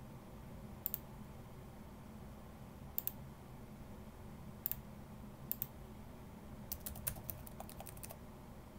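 Computer keyboard and mouse: a few separate clicks spaced a second or two apart, then a quick run of about a dozen keystrokes near the end as a password is typed.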